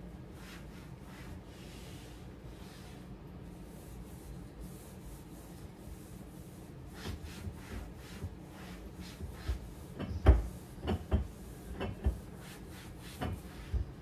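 A cloth rubbing over kitchen cabinet doors in soft wiping strokes. About halfway through come several sharp knocks and taps on the cabinets, the loudest about ten seconds in.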